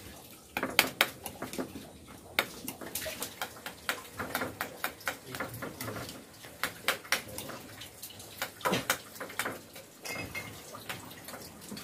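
Water splashing under a tap, with many short, irregular clicks and knocks of dishes and utensils being handled.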